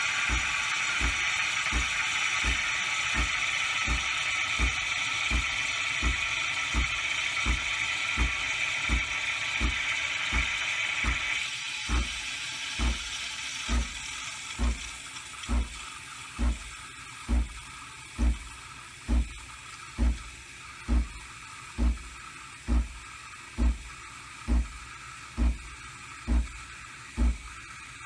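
Nespresso Creatista Plus steam wand hissing as it froths milk in the jug, over a low pulsing thump about twice a second. About eleven seconds in the hiss stops, and the machine keeps up a regular low thump about once a second.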